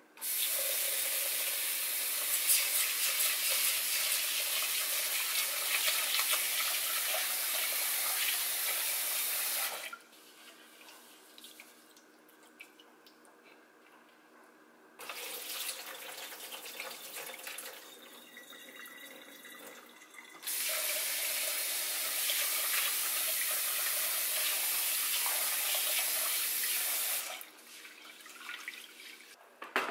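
Kitchen faucet running into a rice cooker's inner pot as uncooked rice is rinsed. The tap runs for about ten seconds, stops, and runs again for about seven seconds, with quieter swishing of water and rice in the pot between the two runs.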